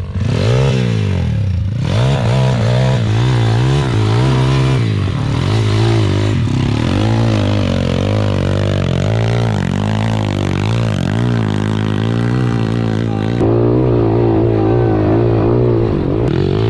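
Four-stroke pit bike engine revving up and down hard under load, the throttle worked again and again as the bike climbs a steep, rocky dirt hill. About 13 seconds in the sound changes abruptly to another stretch of engine revving.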